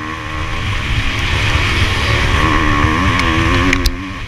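Motocross bike engine at racing throttle, heard on board: the engine note climbs in pitch and loudness, then dips sharply near the end as the throttle is shut, with a couple of sharp clicks around that moment.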